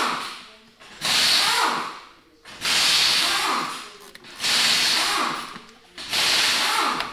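Power driver run in short repeated bursts, about one every second and a half, each starting sharply and winding down in pitch, backing out the screws that hold a plastic inner fender liner in the wheel well.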